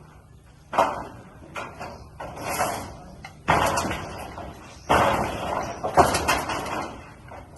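A series of about six sudden bangs and clatters, each trailing off over half a second to a second, over a low steady hum.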